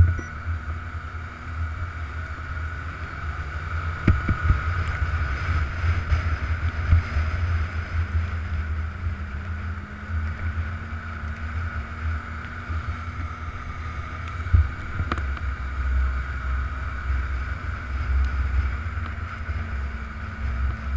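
Snowmobile engine running at a steady cruise, heard from the machine itself, with wind rumbling on the microphone. There are two sharp knocks, about four seconds in and again around fifteen seconds in.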